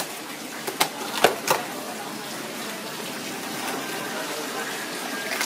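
Knife cutting into the crisp, crackled skin of a whole roast pig: a few sharp cracks in the first second and a half, then a steady hiss.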